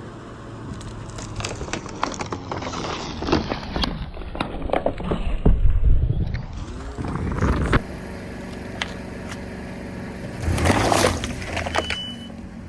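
A car tyre rolling over and crushing Coca-Cola containers: a dense run of crackles and crunches over a low rumble for about seven seconds. Then the car's engine runs steadily, with one louder noisy burst near the end.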